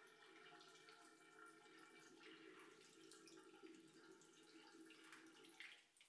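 Faint, steady trickle of water pouring from a watering can's thin spout into a plant pot. It stops abruptly just before the end as the pouring ends.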